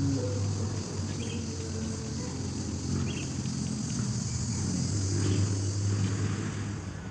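Steady insect buzzing over a low steady hum, with a few short high chirps about two seconds apart.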